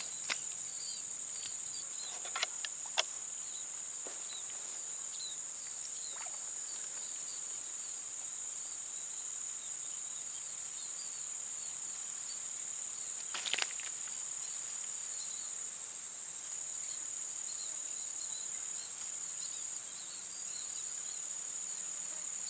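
Steady high-pitched insect chorus, broken by a few short clicks about two and three seconds in and again past the middle.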